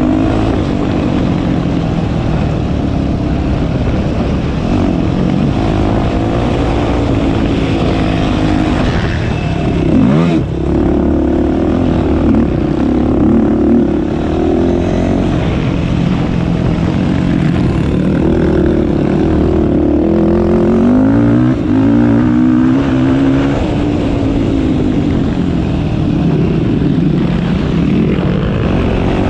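Yamaha YFZ450R quad's single-cylinder four-stroke engine under hard riding, its revs rising and falling as the throttle is opened and shut, with a sharp drop and pickup about ten seconds in.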